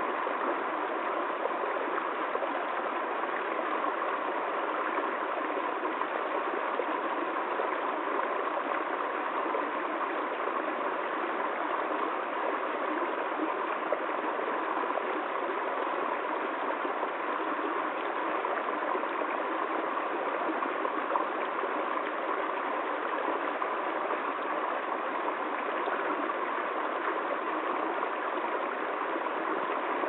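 Small rocky woodland stream running over a low cascade: a steady, unbroken rush and babble of water.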